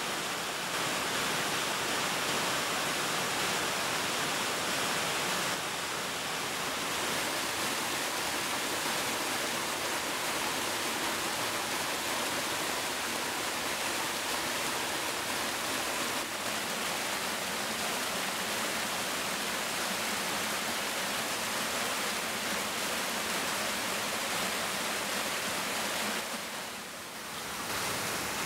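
Waterfall and stream water rushing in a steady, even roar. The level shifts slightly a few seconds in and dips briefly near the end.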